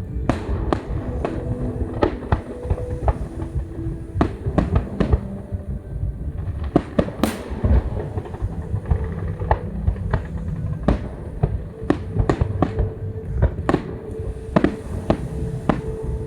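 Fireworks display: a rapid, irregular run of sharp bangs and crackles over a continuous low rumble of bursting shells.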